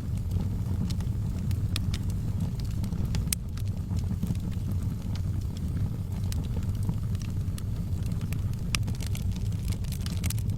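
Wood fire burning in a fireplace: a steady low rumble of the flames with irregular sharp crackles and pops scattered throughout.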